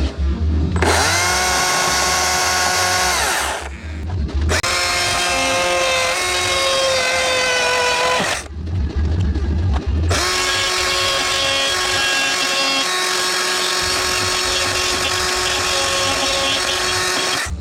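Chainsaw running at high revs in cuts, pitch rising as it comes up to speed, dropping back twice to a low throbbing idle, about four and about eight and a half seconds in.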